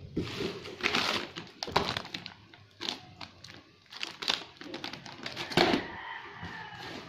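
Plastic packaging crinkling and rustling in irregular bursts as a brake hose sealed in a plastic bag is handled and lifted out of its box.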